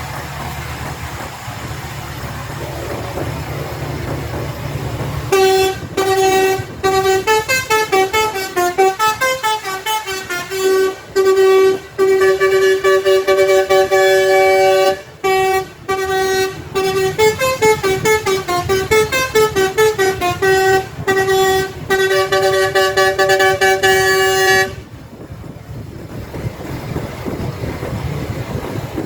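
Bus telolet horn with a Basuri multi-tone horn set, playing a melody of loud, stepping pitched toots with short breaks from about five seconds in until a few seconds before the end. A low engine rumble is heard before and after the horn.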